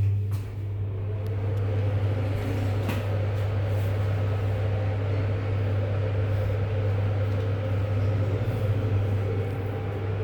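A 1991 Fujitec passenger lift heard from inside the moving car: a steady low hum with a faint rushing noise as the car travels between floors.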